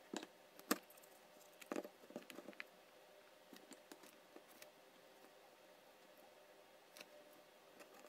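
Faint scattered clicks and light taps from handling a 3D-printed plastic joystick gimbal and its wires while soldering leads to a potentiometer, mostly in the first three seconds and once more near the end, over a faint steady hum.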